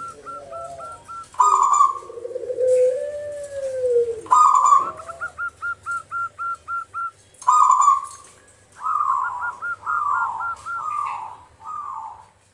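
Caged zebra dove (perkutut) singing its cooing song. A few low, rolling coos are followed by three loud phrases. Each phrase opens with a strong coo and runs into a quick string of short staccato notes, and near the end it slows into a series of falling coos.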